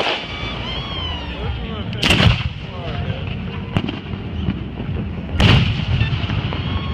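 Two loud firework explosions about three seconds apart, with a smaller crack between them.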